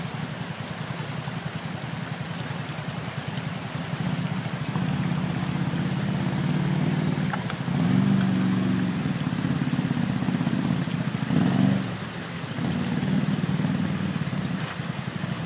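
ATV engine running and revving in surges, over the steady rush of river water.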